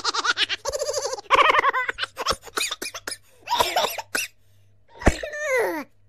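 A woman laughing hard: rapid high-pitched pulses of laughter, then gasping breaths and short bursts. Near the end comes one last laugh that slides down in pitch.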